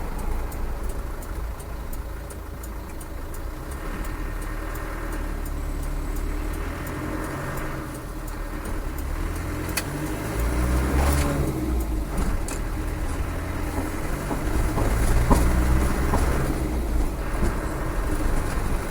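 Land Rover's rebuilt 300Tdi four-cylinder turbodiesel running on the road, heard from inside the cab. It gets louder from about halfway through as the vehicle pulls harder.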